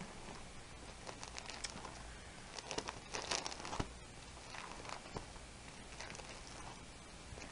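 Pages of a binder of plastic sleeves holding tissue paper being turned: faint crinkling and rustling, with a few crisper rustles about three seconds in and again around five seconds.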